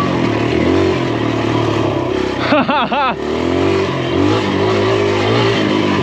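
Kawasaki KLX dirt bike's single-cylinder four-stroke engine running on a trail ride, its pitch rising and falling with the throttle. A short laugh from the rider comes about two and a half seconds in.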